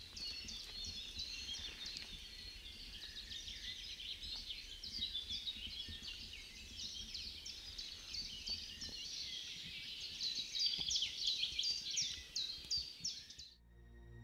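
Many small songbirds singing at once, a dense chorus of quick, high chirps and trills. It cuts off suddenly near the end as soft ambient music comes in.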